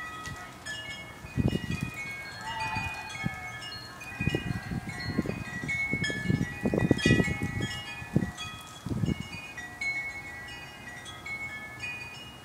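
Wind chimes ringing: many overlapping notes at different pitches, each ringing on briefly and fading, with irregular low thumps on the microphone.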